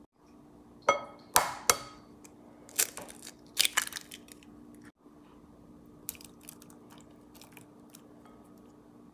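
An egg tapped sharply against the rim of a glass mixing bowl three times, the taps ringing briefly, then the shell crackling as it is broken open and pulled apart over the bowl. A few faint light ticks follow.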